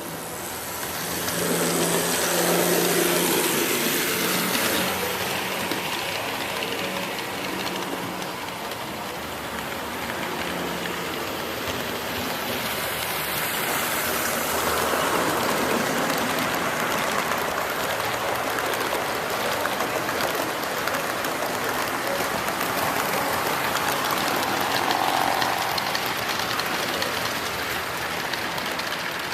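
HO scale model trains running on a layout: a steady hissing rolling noise of small wheels on rails and their motors, with a low steady hum for the first ten seconds or so.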